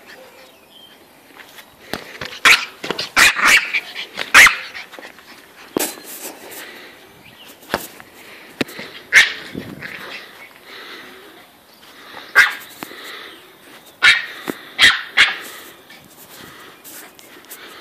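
A Pomeranian barking in short, sharp barks, a dozen or so in scattered bursts with gaps between them.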